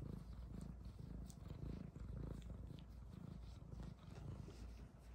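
F1 Bengal cat (half Asian leopard cat) purring while her chin is scratched: a low, continuous purr that swells and fades in a steady rhythm.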